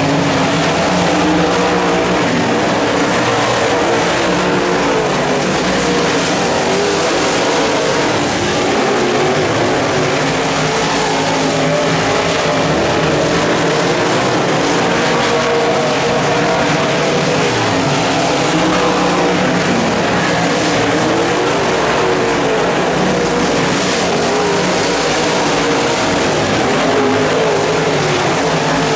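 Dirt late model race cars' V8 engines running hard around the track, several engines blending together, their pitch rising and falling in waves as the cars lift and accelerate through the turns.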